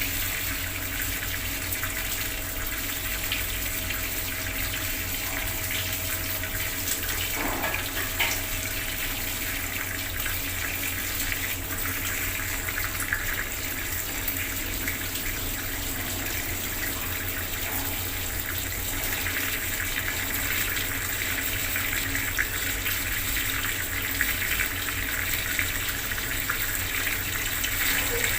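Bathroom water tap running steadily, its stream splashing into the basin with a constant hiss and small irregular spatters.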